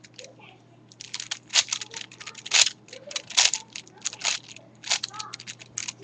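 Plastic 5x5 Rubik's cube being turned by hand: quick runs of sharp clicks and clacks as its layers rotate and snap into place, sparse for the first second and then dense.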